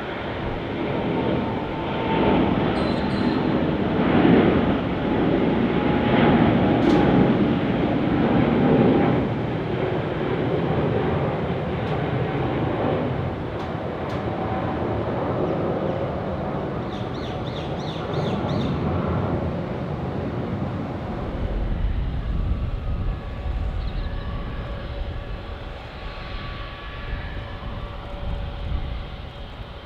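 Jet airliner engines running, loudest from about two to nine seconds in, then slowly fading to a deep low rumble as the aircraft moves away.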